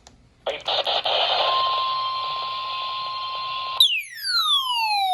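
Weather-radio receiver static with a steady single-pitch alert tone in it, which stops a little under four seconds in. It gives way to a long electronic swoop with overtones that falls steadily in pitch.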